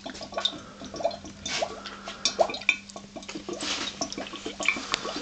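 HHO gas from a home-built electrolysis cell drawing about 20 amps at 12 V, bubbling through the water in a clear water trap: a fast, irregular patter of small pops and gurgles over a faint steady hum.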